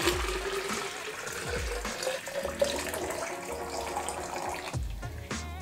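Water poured from a glass pitcher into a tall clear plastic Barbie Color Reveal cylinder, with a splashing pour and a note that rises in pitch as the tube fills. The pour stops near the end as the pitcher runs out just short of the tube's fill line.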